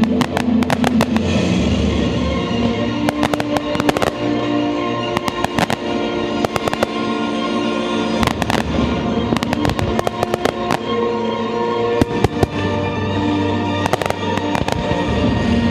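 Aerial fireworks shells bursting, with many sharp bangs in quick, irregular succession, over music with sustained held notes.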